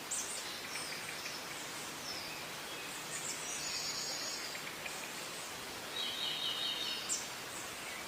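Eurasian tree sparrows chirping: scattered short, high chirps, with a quick stuttering run of notes near the middle and another about three-quarters through, over a steady hiss.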